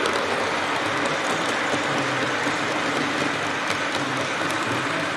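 HO scale model freight train rolling past close by: a steady running noise of the wagons' wheels on the track, with scattered faint clicks.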